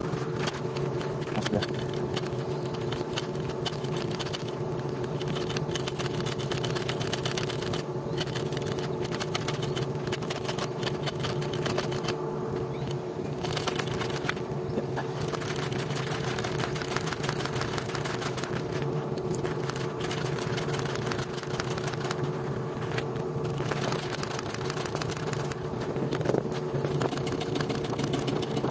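Excavator's diesel engine idling steadily, an even, unchanging drone with no change in speed.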